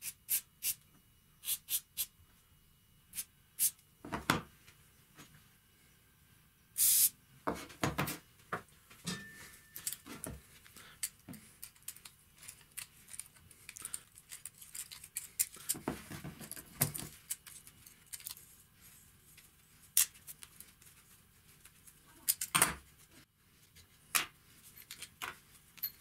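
Rusty steel hand vise being worked by hand: scattered metal clicks and clinks as it is handled and its screw is turned with pliers. A short hiss of aerosol penetrating-oil spray comes about seven seconds in.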